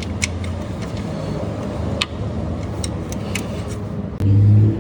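Hand tools working on a car engine: a few scattered sharp clicks and light metal taps over a steady low hum. A louder low hum starts about four seconds in.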